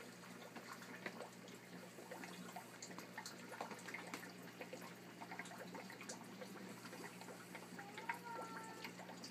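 Aquarium power filters running: water trickling and dripping back into the tank in many small drips over a steady low motor hum. A short pitched sound that slides up and down comes near the end.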